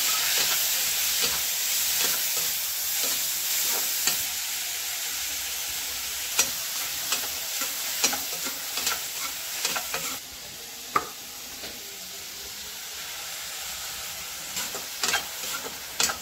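Tomatoes and shrimp sizzling in hot oil in a steel kadhai, with a perforated metal spatula stirring and scraping, clinking against the pan many times. The sizzle is loudest at the start, just after the tomatoes go in, and eases a little after about ten seconds.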